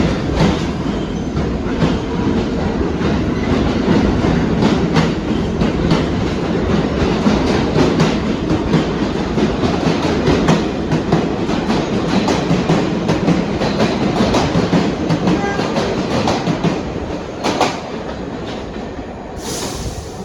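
New York City subway train running past the platform, its wheels clattering over rail joints with many sharp clicks; it grows quieter near the end, and a short hiss comes just before the end.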